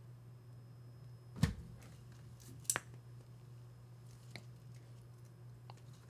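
Jinkai SC-3 hand crimping tool pressing an aluminum crimp sleeve onto heavy monofilament leader: a sharp click about a second and a half in, a second click about a second later and a faint third near the end, over a low steady hum.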